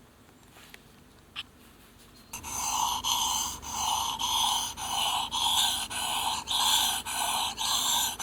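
Knife blade rasping back and forth across a sharpening stone, honing a convex edge. The strokes come in an even rhythm of about two a second, starting a couple of seconds in, after a few faint clicks.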